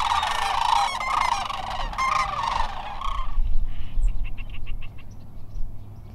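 A flock of large flying birds calling, many overlapping calls at once. The calling stops about three seconds in, leaving a few faint ticks and a low rumble.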